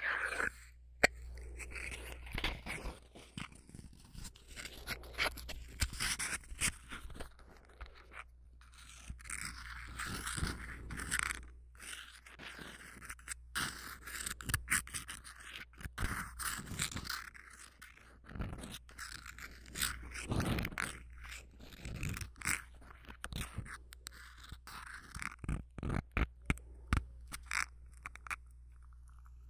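Matchbox handled close to a binaural microphone: irregular scraping and scratching with many sharp clicks and taps, stopping briefly now and then.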